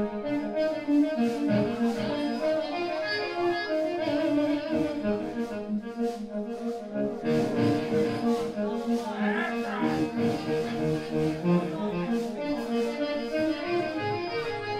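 Live rock band playing through stage amplifiers: electric guitars over a steady drum beat, recorded from the audience in a club.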